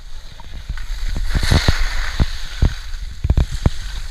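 Wind buffeting the microphone of a camera moving down a ski slope, over the hiss and scrape of edges sliding on packed snow, with irregular knocks from bumps in the run. The scraping hiss swells about a second and a half in.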